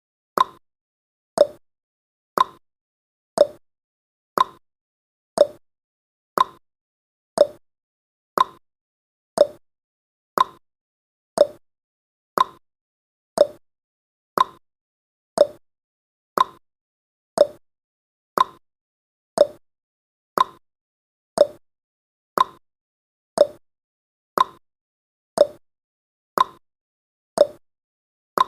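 Clock tick-tock sound effect: one sharp tick each second, alternating between a higher and a lower click, marking the seconds of a countdown.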